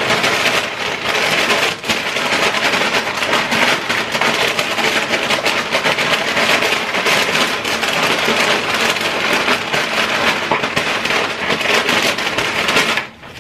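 Close, loud crinkling and rustling of a large paper chips bag as a hand rummages inside it, a continuous crackle that stops abruptly near the end.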